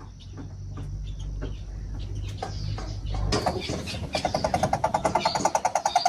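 A low steady hum, then from about halfway a bird's rapid, evenly paced series of pulsed hoots, about six or seven a second, growing louder.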